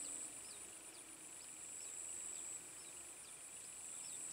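Faint insect chorus: a steady high-pitched buzz over a lower trilling layer, with short chirps repeating about twice a second.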